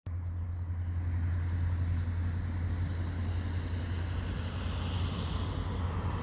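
Light single-engine propeller aeroplane taxiing, its engine a steady low drone.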